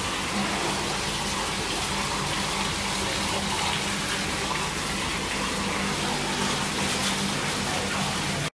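Steady rushing noise with a low hum underneath, constant throughout.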